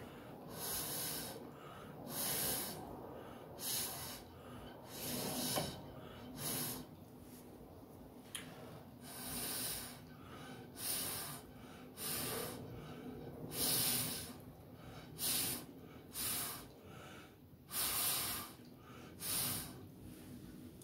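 A person blowing short puffs of breath onto wet acrylic paint, about one puff every second or so with a few longer gaps, to push the paint across the canvas in a Dutch pour.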